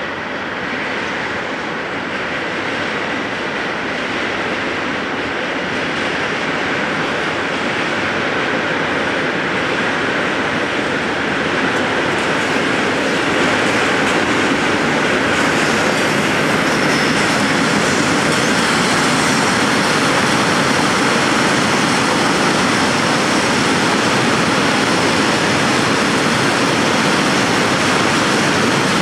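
Freight train of tank wagons rolling past behind its locomotive, a steady rumble of wheels on rails that grows gradually louder, with a faint high whine joining about halfway through.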